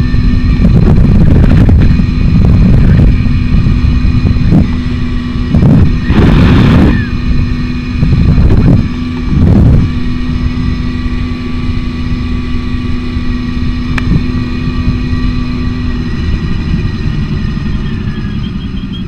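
Romet Ogar 200 moped's single-cylinder two-stroke Jawa 223 engine running under way, heard from the rider's camera. A loud low rushing noise comes in gusts through the first ten seconds or so, then eases to a steadier, slightly quieter level.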